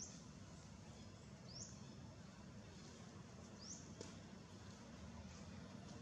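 A short, high, upward-sweeping bird chirp repeated three times about two seconds apart, over faint steady outdoor background noise with a low rumble.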